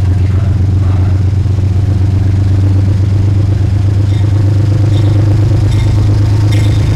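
Metro-North GE Genesis P32AC-DM diesel locomotive pulling slowly into the platform, its diesel engine running loud and steady with a low drone. A high ringing repeats a few times near the end, under a second apart.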